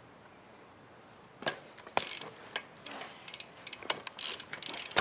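BMX bike's rear hub ratchet clicking, with sharp knocks and rattles, as the bike is rolled off and ridden. It starts after about a second and a half of near quiet and grows busier toward the end.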